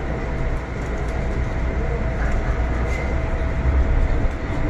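MTR Kwun Tong Line M-Train, heard from inside the car as it pulls out of a station platform: a steady rumble of running gear and traction motors, growing a little louder near the end.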